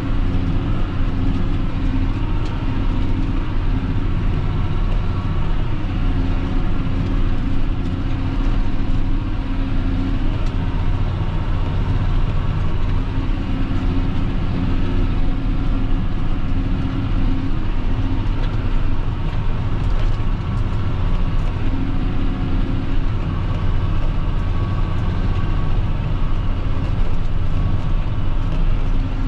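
John Deere 6530 tractor's diesel engine running steadily under ploughing load, heard from inside the cab.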